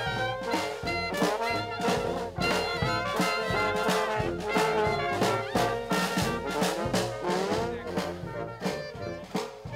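Live brass band playing an upbeat tune: trombone and trumpet lines with sliding notes over a sousaphone, and a bass drum keeping a steady beat about twice a second.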